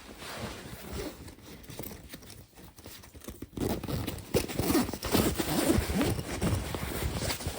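Plastic packaging rustling and crinkling as it is handled, in irregular bursts that get busier and louder about halfway through.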